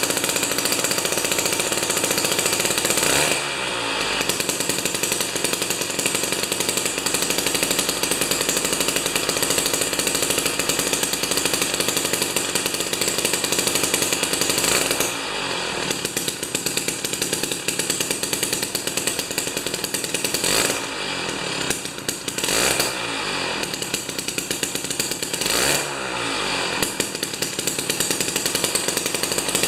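Jiffy 30 ice auger's 3 hp Tecumseh two-stroke engine running loud at high revs, its pitch sagging and climbing back up about four times. It runs strong at the top end now that the spark plug has been swapped.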